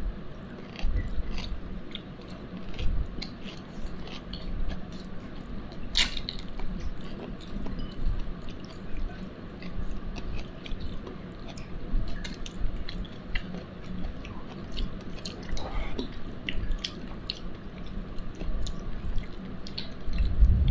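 A person eating chicken by hand, close to the microphone: chewing with frequent small wet clicks and smacks, and one sharper click about six seconds in.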